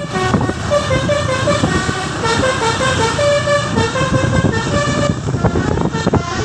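Telolet 'basuri' musical vehicle horn playing a quick tune of many short notes stepping up and down in pitch, over a loud low rumble.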